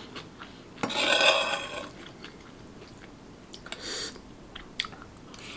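Metal spoon scraping across a plate as fried noodles are gathered onto it: a longer scrape about a second in and a shorter one near four seconds, with small clinks of the spoon between.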